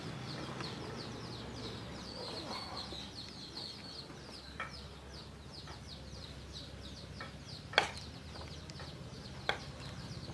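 Cleaver chopping pork on a wooden cutting board: a few sharp separate knocks, the loudest about three-quarters of the way through. Under it runs a steady series of high, quick falling chirps.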